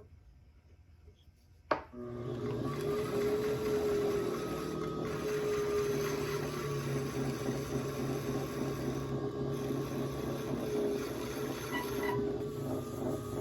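A sharp click about two seconds in, then a pottery wheel running with a steady hum while a trimming tool scrapes clay off the bottom of a spinning pot.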